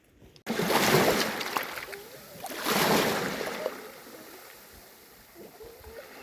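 Sea waves washing onto the shore: two surges about two seconds apart, each swelling and then fading into a softer wash.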